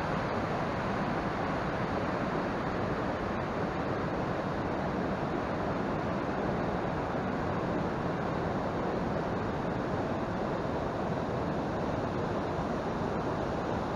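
Steady, even rush of a fast mountain stream.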